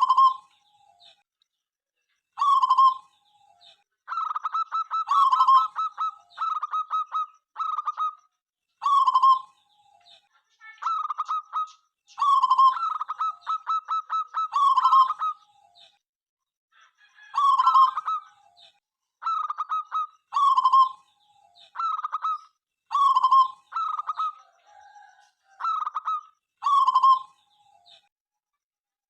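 Zebra dove (perkutut) cooing: a long series of short coo phrases, some made of rapid stuttering pulses, each ending on a longer note, with brief pauses between phrases.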